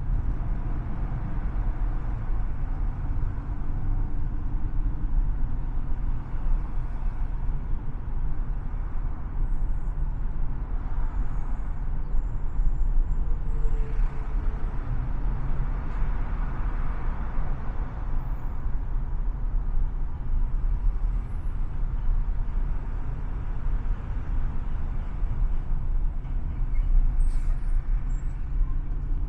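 Steady low rumble of car road and tyre noise while driving at speed in freeway traffic.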